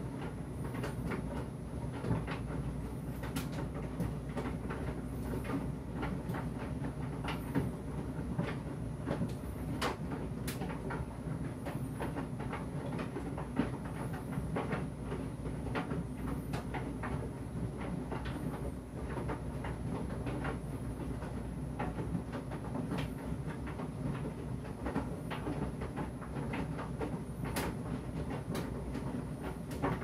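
Electrolux tumble dryer running, with a steady low hum from the motor and turning drum. Irregular clicks and light knocks come from the clothes tumbling inside, and a faint steady high whine sits above it all.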